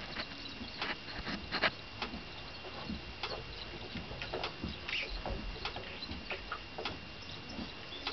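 Newborn foal suckling at the mare's udder: irregular wet smacking and sucking clicks, a few a second.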